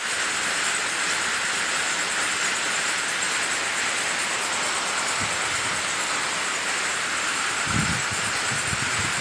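Shoelace-making machinery running, a steady mechanical hiss and whir, with a few low thumps near the end.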